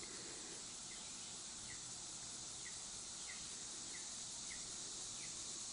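Quiet steady hiss with a faint short chirp repeating a little more than once a second.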